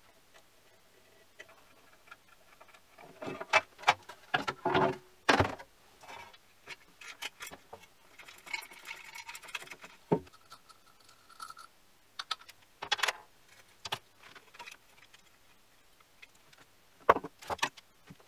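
Irregular clicks, knocks and rattles of metal parts and cables being handled as the old motor is taken out of a mini lathe, loudest in a cluster a few seconds in and again near the end.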